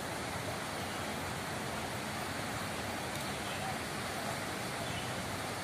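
Steady outdoor background noise: an even rushing hiss with a low rumble, level throughout, with no distinct events standing out.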